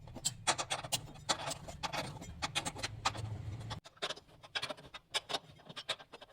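Run of sharp clicks and knocks of parts and tools being handled, with a low hum under the first four seconds that cuts off suddenly.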